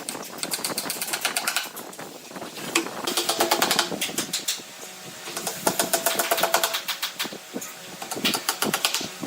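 Rapid mechanical clicking in runs of about a second with short pauses, like a tool ratcheting or rattling at work on wood.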